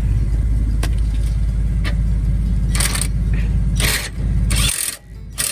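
A steady low rumble of a running motor, with a few sharp metallic clinks over it. The rumble cuts off suddenly near the end, followed by one more clink.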